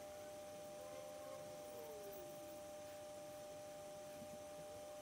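Faint, steady two-note electrical whine over low room hiss.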